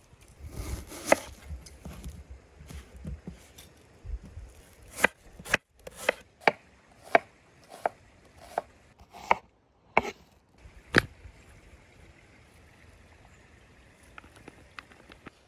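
Kitchen knife slicing an onion on a wooden cutting board: about ten sharp knocks of the blade on the board, roughly two-thirds of a second apart, after a few seconds of rustling handling noise.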